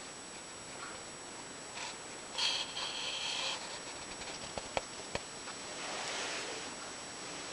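Quiet handling noise: rustling and rubbing, with a brief scuffing burst a few seconds in and three or four sharp light clicks about two-thirds of the way through, over a faint steady high-pitched whine.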